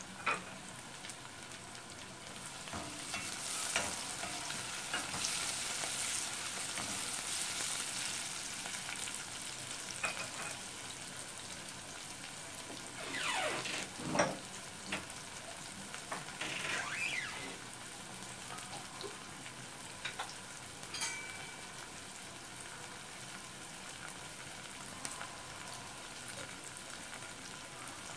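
Chopped onion and sliced hot green chili sizzling in olive oil in a stainless steel pot as they soften. The sizzle swells for a few seconds early on, and the onions are stirred, scraping against the pot a few times about halfway through.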